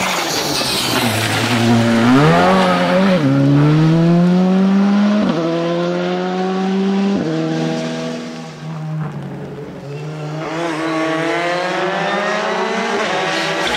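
Škoda Fabia rally car engine dropping in pitch as it slows for a corner, then accelerating hard, its pitch climbing through quick upshifts about three, five and seven seconds in before fading away. About ten seconds in a second rally car, a Ford Fiesta, approaches with its engine rising.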